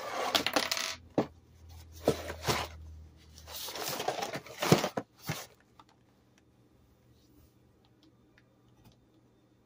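Cardboard box handled in plastic-gloved hands, being lifted and turned over: a run of rustling and scraping with a few sharp knocks for about five seconds, then only a few faint ticks.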